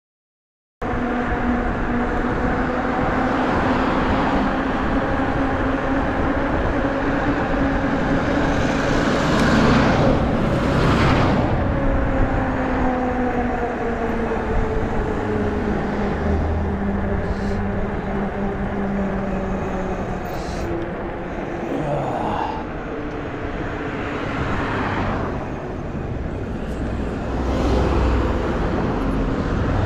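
Riding an electric fat bike along a road: wind on the microphone and a steady hum from the bike that slowly drops in pitch as it slows. Cars pass by with a rising and fading whoosh, louder about ten seconds in and again near the end. The sound cuts in after about a second of silence.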